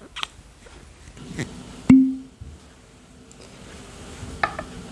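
Cork stopper pulled from a gin bottle with one short pop about two seconds in, leaving a brief hollow tone; a few light clicks and taps before and near the end.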